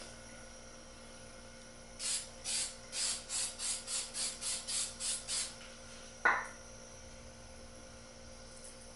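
Airbrush giving a rapid series of short hissing bursts of air, about a dozen at three or four a second, then a single sharp click.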